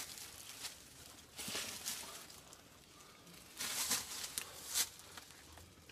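Brief rustling and scuffing noises in a few short bursts, the kind made by clothing and hands moving close to a phone's microphone.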